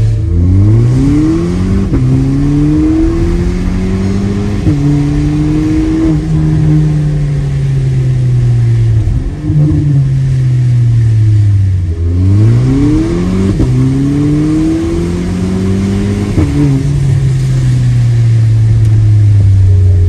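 A Skoda Kodiaq 2.0's four-cylinder engine, heard from inside the cabin through an aftermarket exhaust with the factory silencer and resonator removed. It pulls hard twice, each time rising in pitch with two sudden drops at the upshifts, then slowly falls away as the car eases off.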